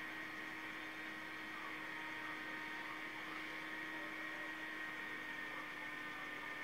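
Steady electrical hum over a faint hiss, unchanging throughout.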